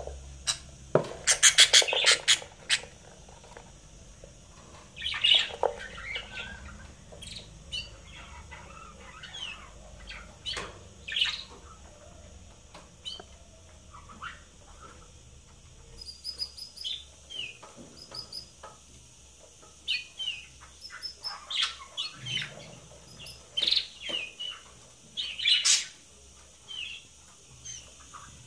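Budgerigars chirping and chattering in short, irregular calls, loudest in the first few seconds.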